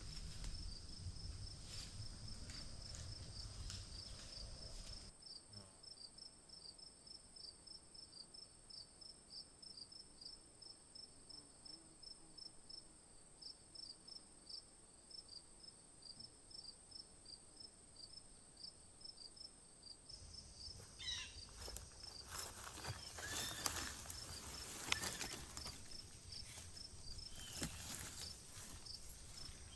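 Crickets chirping in a steady pulse of a few chirps a second over a constant high insect buzz. Footsteps rustle through forest floor litter at the start and again through the last third.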